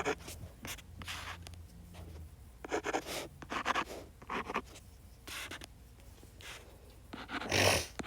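Short, scratchy writing strokes coming in a run of separate strokes as a graph is marked up, with one louder burst of noise near the end.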